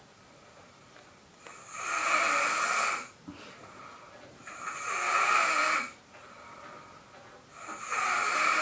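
Snoring: slow, regular breaths about three seconds apart, each lasting a little over a second, with quieter pauses between them.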